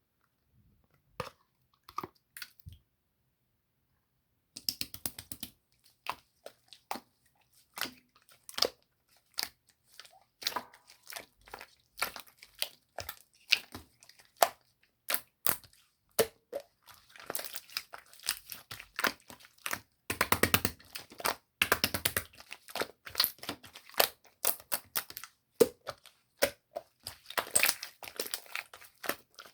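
Hands squishing and pressing slime, giving many quick sticky clicks and crackling pops. It is almost quiet for the first few seconds, then the crackling runs nearly without a break and gets denser in the second half.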